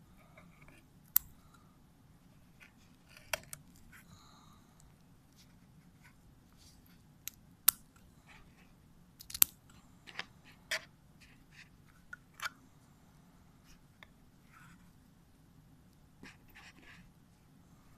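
Irregular sharp clicks and taps with faint scraping from close-up handling of soft material on a glass surface; a few clicks stand out well above the rest.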